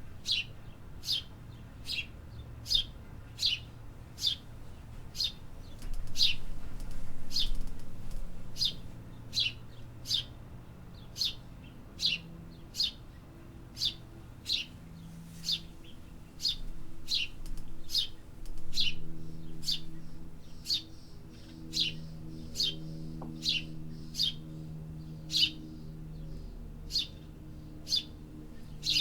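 A bird repeating a single short, falling chirp about every three-quarters of a second, over a low steady urban hum.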